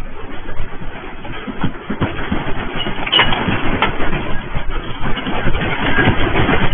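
Deep rumble of a major earthquake, with the building and the camera mounting rattling and clattering continuously, loud throughout. Picked up through a security camera's small microphone.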